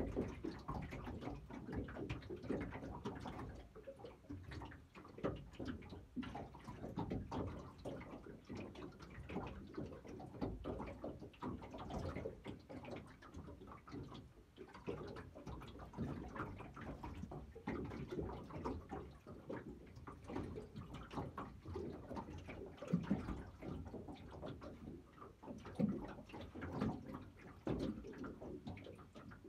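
Water lapping and slapping irregularly against the hull of a small aluminium fishing boat, with occasional hollow knocks.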